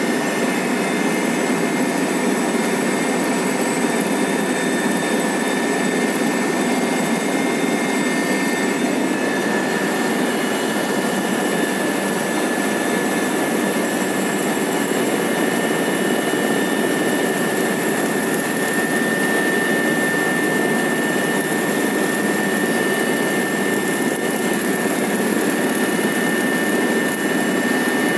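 Helicopter in flight heard from inside its cabin: a loud, steady drone of engine and rotors with a steady high whine running through it.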